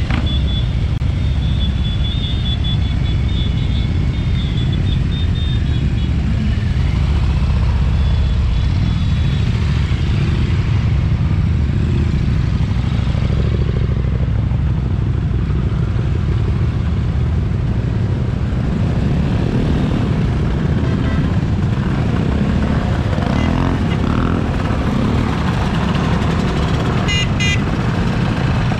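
Motorcycle and scooter engines running steadily, with a few rises and falls in engine pitch.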